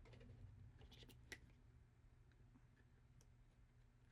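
Near silence with a few faint clicks and light handling noise from a cardboard toy box as its tape is being worked off, the clicks bunched about a second in.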